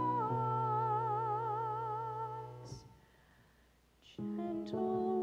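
Soprano voice holding a long note with wide vibrato over piano accompaniment; the phrase ends about halfway through, and after a short pause the singing and piano start again near the end.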